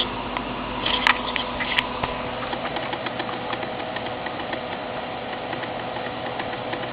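Small Persian cat making a quick run of soft clicking sounds in her sleep, not snoring, over the steady hum of computer fans. A few louder clicks come about a second in.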